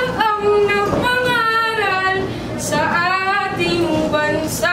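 A child's high voice singing a slow melody with long held notes, unaccompanied.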